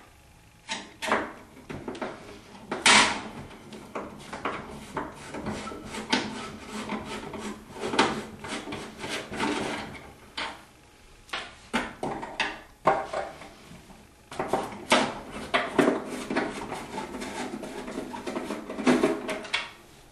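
Flat-head screwdriver undoing the screws on top of a vending tower, with irregular scraping, clicks and knocks as the screws are turned out and the parts handled.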